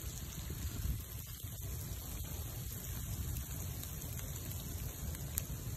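Log bonfire burning with a steady hiss and low rumble, and a few faint crackles, in falling rain.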